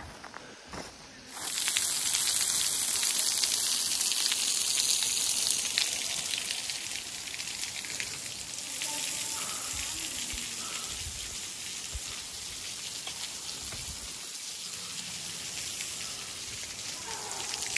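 Steady rush of running water, starting abruptly about a second in and easing slightly after about six seconds.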